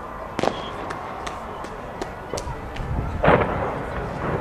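Fireworks display: scattered sharp bangs of aerial shells bursting at a distance, with a louder, longer burst a little after three seconds.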